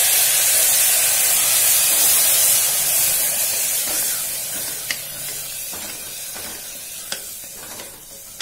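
Ground onion paste sizzling in hot ghee in a pressure cooker pan. The sizzle is loud at first and dies down steadily, while a wooden spatula stirring it gives a few light scrapes and taps in the second half.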